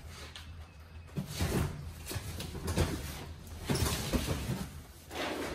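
Cardboard boxes being shifted off a stack and set down, with irregular soft knocks, thuds and scraping.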